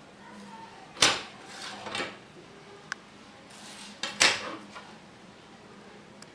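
A steel ruler knocking and clattering on a wooden tabletop: a sharp clack about a second in and another about four seconds in, each with a short rattle, and lighter taps between.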